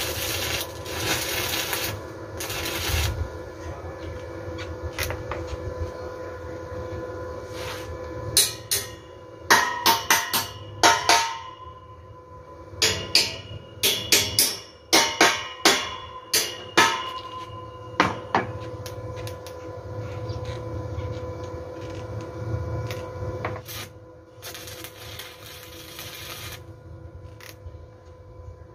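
Electric arc welding on a steel pipe, a steady crackling hiss for the first few seconds, then a long run of sharp hammer strikes ringing off the steel pipe, which is the loudest part. A shorter stretch of welding hiss returns near the end.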